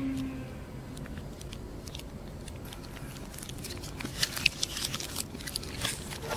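A person chewing a fried chicken nugget with the mouth closed: soft wet mouth clicks and small crunches, sparse at first and more frequent over the last couple of seconds.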